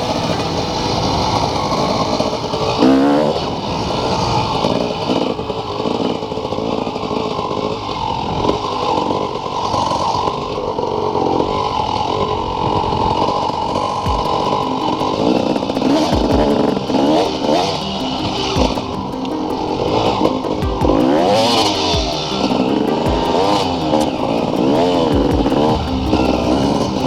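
Motorcycle engine running under riding load, its pitch rising and falling again and again as the throttle is worked, with wind and road noise.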